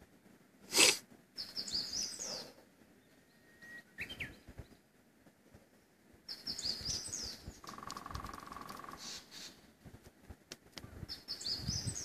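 Songbirds singing short, high, repeated phrases, while about two-thirds of the way through a woodpecker drums one rapid roll of just over a second. Just under a second in, a short, loud snort through the nose close to the microphone.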